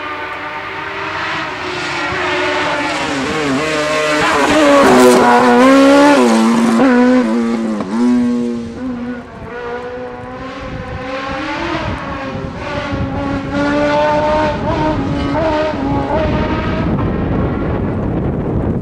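BRC CM05 hill-climb racing prototype accelerating hard up the course. Its engine note rises and drops with each gear change. It passes loudest about five seconds in, then carries on climbing away with a string of rising upshifts, fainter with distance.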